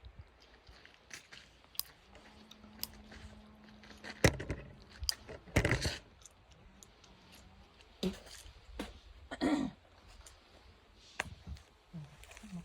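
Oak logs and firewood being handled: scattered knocks, clicks and crunchy scraping of wood, with one sharp wooden knock about four seconds in, the loudest sound.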